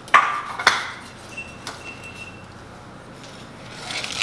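Wire whisk knocking and scraping against a ceramic mixing bowl of beaten eggs: two sharp clinks near the start, then quieter stirring that grows louder near the end.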